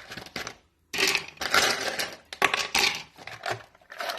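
Ice cubes clattering and rattling as they are dropped into a drinking cup, in a string of sharp clinks and short rattles with brief pauses.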